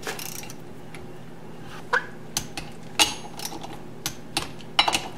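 A torque wrench and socket tightening the brake-disc bolt nuts on a motorcycle wheel hub to 15 foot-pounds, giving a handful of sharp metallic clicks and clinks spaced irregularly through the second half.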